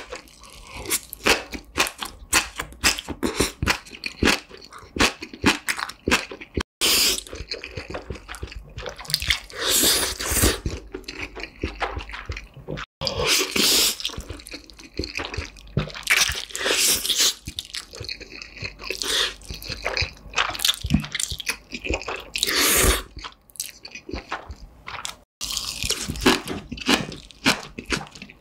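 Close-miked eating of black bean sauce noodles and green onion kimchi: wet chewing and crunching with many sharp mouth clicks. Several long slurps of about a second each run through it.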